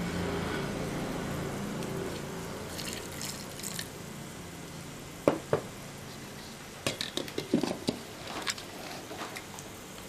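Water poured from a glass onto grated coconut in a steel mixer-grinder jar, with drips and a few light clinks and knocks of the glass and jar being handled.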